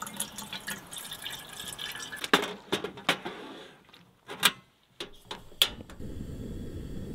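Water poured from a plastic bottle into an aluminium camping kettle, then a few knocks and sharp clicks as the kettle is set on a portable gas stove and the stove is lit. About six seconds in, the burner catches and settles into a steady low rush of gas flame.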